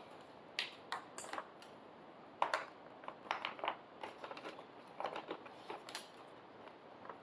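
Irregular small clicks, taps and rustles of hands working with plastic wiring connectors and wires on a motorcycle's tail-light and indicator wiring.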